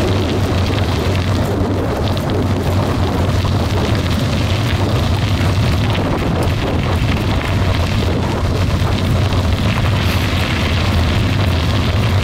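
Steady low rumble and hiss of wind buffeting the microphone while moving along a gravel road, with no break or change.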